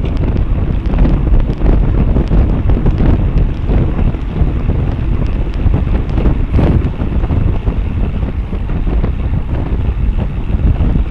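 Wind buffeting the microphone of a camera mounted on a bicycle moving at racing speed: a loud, gusty rush heaviest in the low end, with scattered faint ticks.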